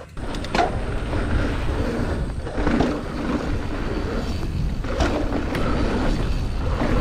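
Wind buffeting the microphone and tyres running over dirt as a mountain bike is ridden, a steady rough rush that starts suddenly, with a few sharp clacks from the bike over bumps.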